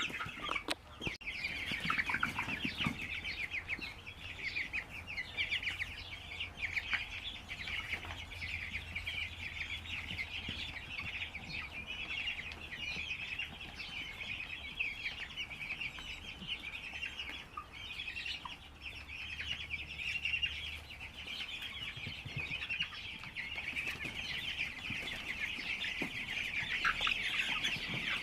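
Large flock of broiler chickens calling all at once: a dense, continuous chatter of overlapping clucks and cheeps, with a short knock about a second in.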